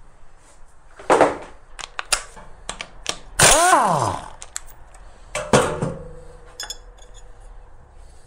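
Pneumatic impact wrench fires a short burst to undo the camshaft pulley bolt, and its whine falls in pitch as it spins down. Metal clanks come about a second before it and again just after it.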